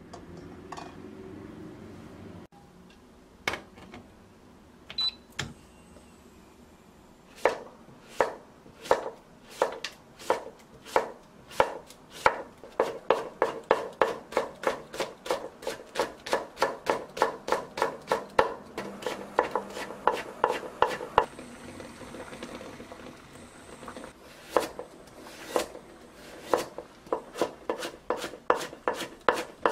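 A broad-bladed kitchen knife chopping vegetables on a wooden cutting board: first slicing cucumber, then cutting carrot into thin strips. The knife strikes the board in steady strokes, slower at first and then about three a second, with a short pause about two-thirds through.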